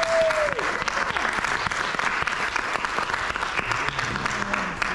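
Audience applauding, a dense patter of clapping that starts to die away near the end, with one short high cheer from the crowd at the very start.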